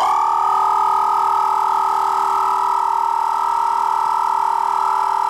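Audew 12V DC twin-cylinder tire inflator switched on and running steadily, a loud, high-pitched pumping noise, as it starts filling an emptied tire.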